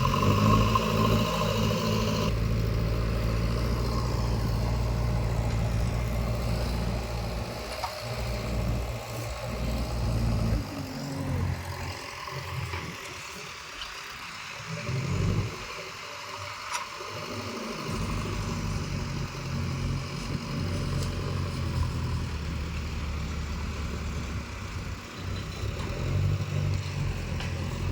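A heavy machine's diesel engine running steadily, easing off and faltering for several seconds midway, then settling back to a steady run.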